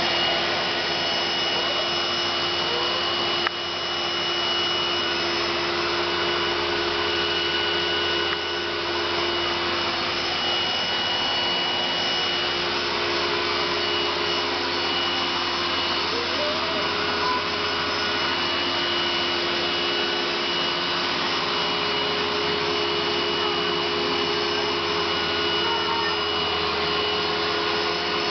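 Philips Aqua Trio wet vacuum cleaner running steadily, a constant motor noise with a steady whine.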